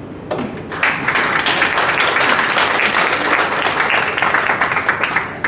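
A roomful of people applauding: a dense, even clapping that starts a moment in and keeps up steadily.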